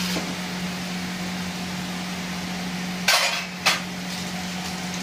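Onion, tomato and spice masala sizzling steadily in hot oil in a frying pan. About three seconds in there is a brief loud clatter of metal utensils, then a single knock.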